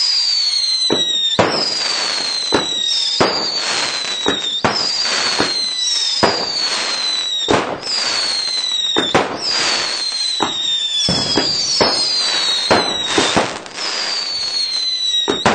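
A consumer firework cake firing a steady series of whistling shots: each shot gives a sharp bang and a whistle that falls in pitch over about a second, roughly one every second and a half, with more bangs in between.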